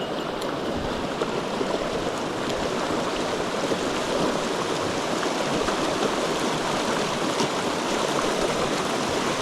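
Mountain stream water rushing, a steady, even wash of flowing water.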